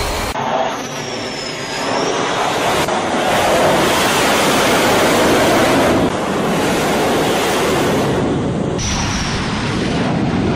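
Carrier-based jet aircraft on an aircraft carrier's flight deck during arrested landings: loud, steady jet engine noise with a brief high whine near the start and another near the end. The sound changes abruptly several times.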